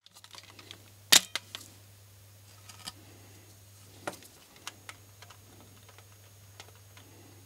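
Scattered light clicks and taps of small plastic parts as a FlySky GT5 transmitter's casing and steering-wheel assembly are handled and taken apart, the sharpest click about a second in.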